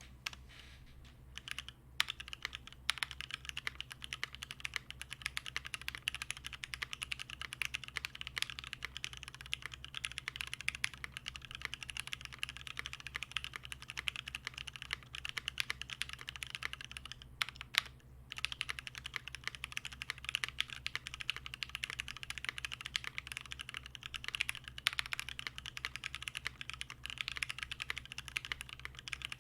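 Continuous fast typing on a Ply.wrks Spyder TKL mechanical keyboard: Cherry MX Black Hyperglide linear switches on an aluminium plate under OG Cherry dye-sub keycaps, a dense stream of keystrokes with a brief pause a little past halfway. A faint steady low hum sits underneath.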